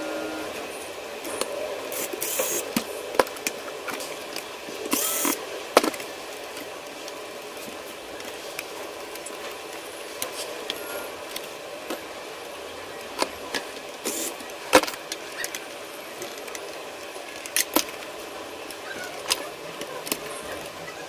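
Scattered clicks and knocks, with a few short rustles, as the plastic body of a partly disassembled Panasonic UX90 camcorder is handled and turned over on a cloth-covered bench, over steady room noise.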